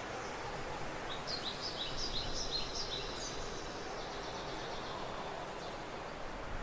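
Forest ambience: a steady background hiss with a bird singing a quick run of about eight short, high, downward-slurred notes, starting about a second in and lasting about two seconds.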